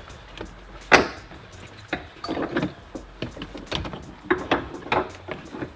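A seatbelt assembly being worked out through a car's interior trim: a sharp knock about a second in, then a run of irregular knocks and clatters.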